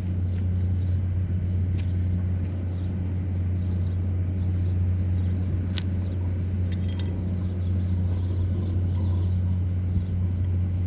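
Heavy machinery running steadily with a deep, even hum, with a few light clicks near the middle.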